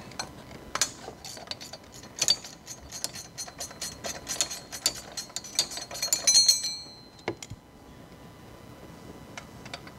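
Hand ratchet wrench clicking rapidly as a bolt on an engine bracket is backed out, the clicking stopping about seven seconds in, with one more click a moment later.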